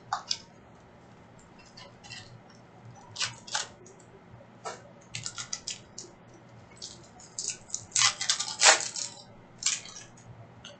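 Plastic wrapper of a Panini Prizm basketball card pack crinkling and tearing as the pack is pulled from its retail box and ripped open, in irregular spells of crackling, loudest about eight seconds in.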